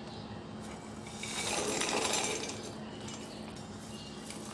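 Roasted peanuts, garlic cloves, green chillies and cumin seeds tipped off a plate into a stainless-steel mixer-grinder jar, the hard pieces rattling against the metal in a swell lasting about a second and a half, starting about a second in.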